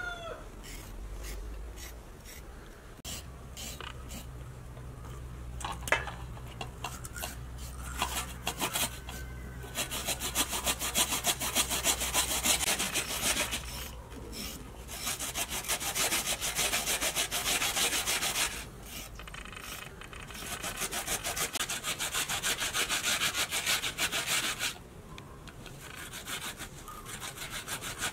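A peeled potato being grated on a plastic hand grater: rapid rasping strokes in runs with short pauses between them, getting louder about ten seconds in.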